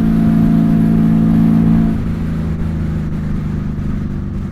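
Honda Valkyrie flat-six engine with Cobra six-into-six exhaust pipes running under way at a steady pitch, then easing off about two seconds in and running on quieter and a little lower.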